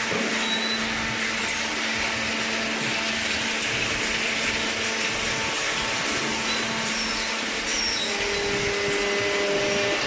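Industrial baling machinery running: a steady whirring noise with a constant low hum, and a second, higher hum joining about eight seconds in.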